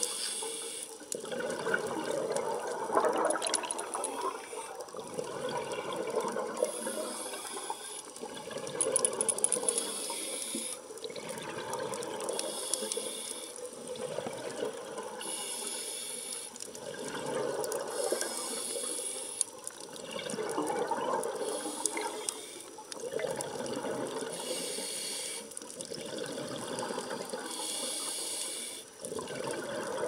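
Underwater sound of a scuba diver breathing through a regulator: hissing inhalations alternate with surges of exhaled bubbles, in a cycle every two to three seconds.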